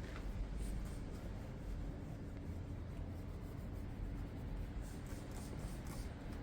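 Soft, scattered rubbing and scratching strokes of hand-cleaning a motorcycle, over a faint steady hum.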